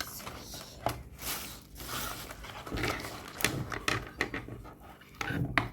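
Rustling and irregular knocks of a packaged pair of shoes being opened and unwrapped by hand.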